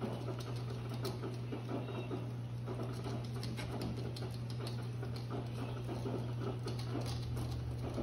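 Fingers tapping and scratching on a wet pond-edge rock in a dense irregular patter, over a strong steady low hum.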